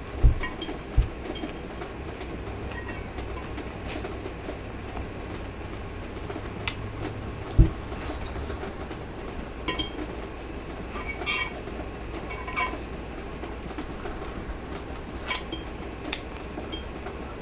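Eating sounds: scattered clicks and light clinks of utensils against dishes, with mouth sounds. A louder thump comes about seven and a half seconds in, all over a steady low hum.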